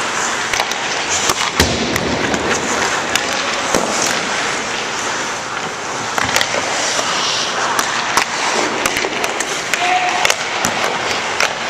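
Ice hockey practice on a rink: a steady scraping of skates and goalie pads on the ice, with frequent sharp clacks of pucks and sticks.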